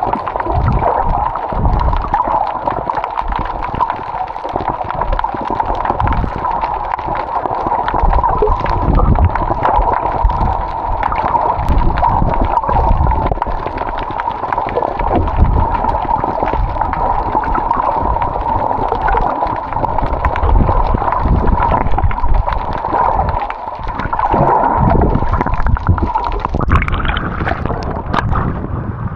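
Muffled underwater gurgling and irregular low rumbling from a camera held under the surface while snorkeling, over a steady hum. About 27 seconds in the sound turns brighter and hissier.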